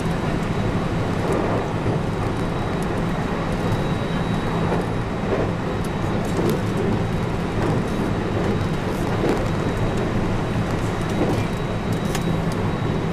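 JR West 223 series 2000-subseries electric train running at speed, heard from just behind the cab: a steady rumble of wheels on rail with a few light clicks.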